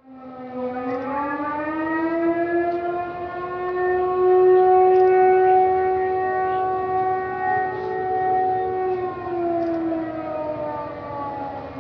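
Civil defence siren wailing: its pitch climbs over the first couple of seconds, holds steady, then slides down near the end. It is the signal for the nationwide moment of silence on Martyrs' Day.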